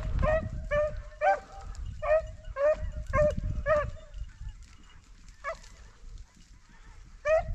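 Rabbit-hunting dogs barking: about eight barks in quick succession in the first four seconds, then two more spaced out, the second near the end. The dogs are giving voice as they run a rabbit.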